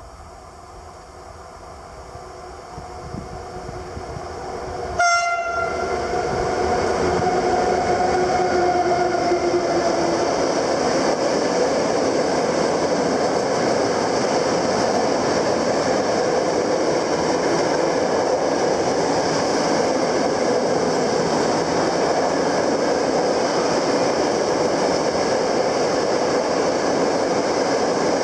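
A train approaching and passing close by, sounding its horn in one blast of about five seconds that starts about five seconds in, followed by the steady loud noise of the train going past.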